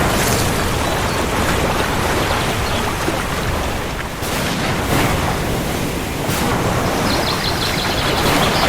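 Steady heavy rain falling, with a low rumble beneath it.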